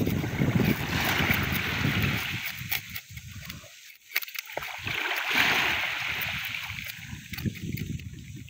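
Wind rumbling on the microphone, with waves washing over a pebble shore in two swells. Light scraping clicks come from a knife scaling fish on a wooden board.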